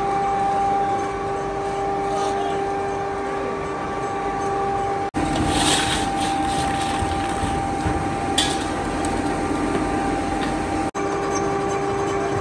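Workshop machinery running with a steady hum over mechanical noise. The sound changes abruptly twice, about five and about eleven seconds in, with a short sharp clink between them.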